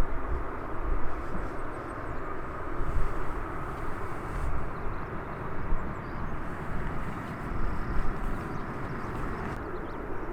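Jet airliner's engines rumbling steadily as it approaches to land, a low, wavering roar.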